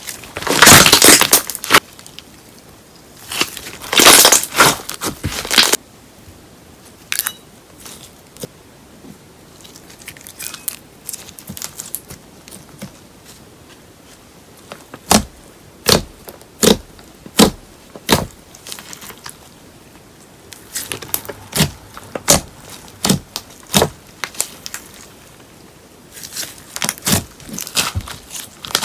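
Slime mixed with paper clay being worked by hand, crackling and crinkling. After two long crackly stretches comes a run of sharp separate pops and clicks, about one every half second to second.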